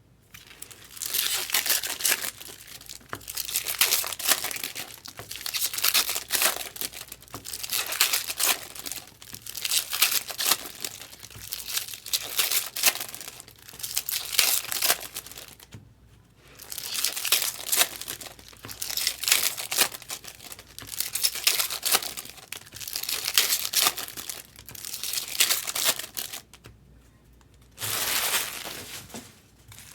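Trading-card pack wrappers being torn open and crinkled by hand, one pack after another, in repeated bursts of crackling with two short pauses.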